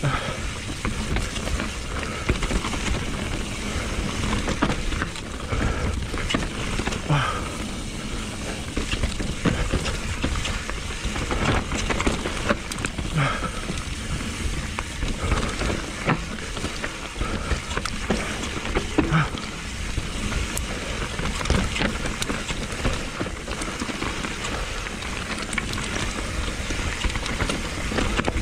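Mountain bike rolling fast down a dry dirt and loose-stone trail: tyres crunching over gravel, with the bike rattling and frequent sharp knocks over bumps and roots, and wind buffeting the microphone.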